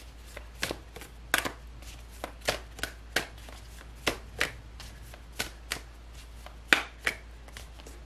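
A deck of oracle cards being shuffled overhand by hand, the cards tapping and slapping together in irregular sharp clicks, about two a second.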